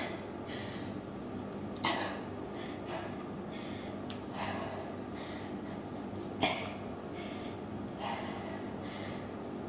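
A woman breathing hard, with short, noisy exhales every second or two from physical exertion.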